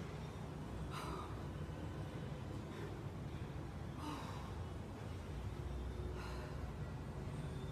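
A woman breathing hard through her mouth, catching her breath after exertion: a heavy breath every second or two, over a steady low hum.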